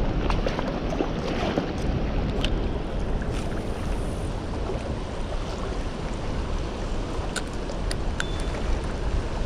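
Fast-flowing river water rushing steadily, with wind buffeting the microphone. A few sharp clicks sound near the end.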